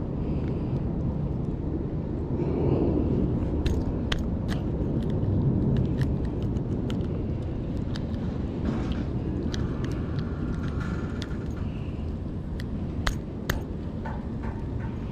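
Steady low outdoor rumble, with scattered sharp clicks and small taps as hands work a lure's hook free from a caught fish's mouth.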